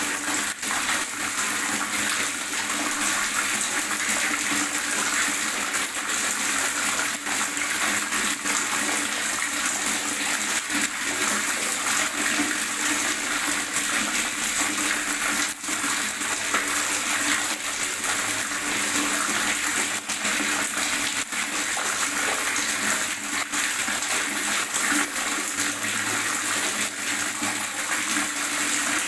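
Gurgling water running on steadily, with a few small clicks in the rush.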